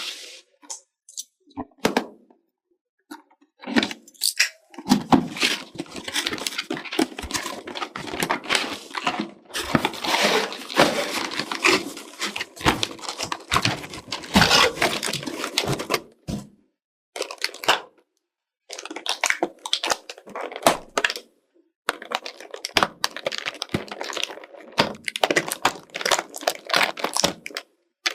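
Packaging crinkling, rustling and tearing in bouts of handling, with scattered sharp clicks and knocks, as toy pieces are unwrapped. Two long stretches with brief pauses between.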